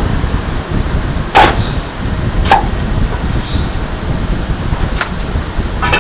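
Meat cleaver chopping a crispy roast suckling pig on a thick wooden chopping block: two loud chops about a second apart, then a lighter knock and a few small knocks near the end. A steady low rumble runs underneath.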